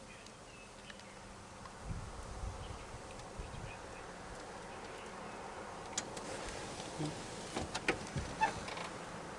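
Insects buzzing steadily, with a few short clicks or knocks in the second half.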